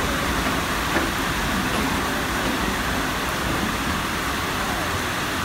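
Heavy rain falling in a steady hiss, with the low rumble of passenger coaches rolling slowly past on the track.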